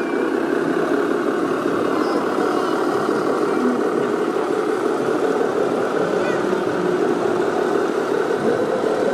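Small electric motor of a toy RC vehicle whirring steadily.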